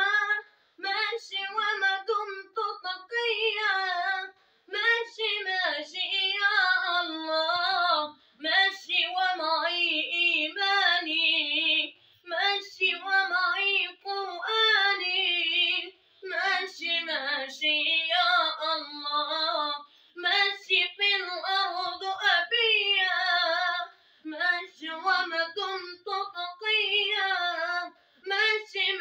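A boy with a high, unbroken voice singing an Arabic nasheed unaccompanied, in phrases of about four seconds with short breaths between them.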